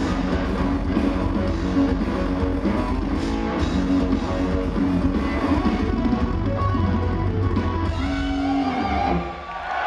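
Live rock band playing, electric guitar strumming over drums and heavy bass, heard from the audience. The song ends about nine seconds in, and the crowd starts cheering at the very end.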